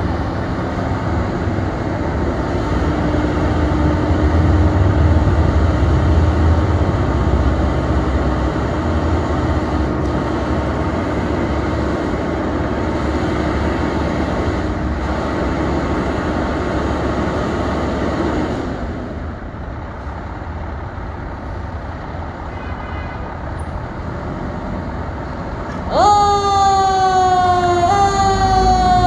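Fire apparatus diesel engine rumbling as it pulls out, easing off about 18 seconds in. About 26 seconds in an electronic siren starts up, sweeping down in pitch and jumping back up about every one and a half seconds.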